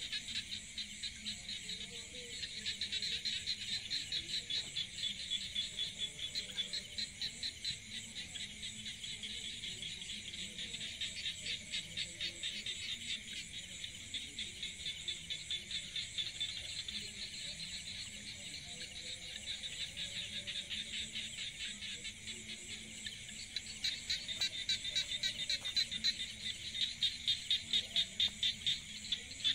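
Insects buzzing in a steady, high, rapidly pulsing chorus that grows louder near the end.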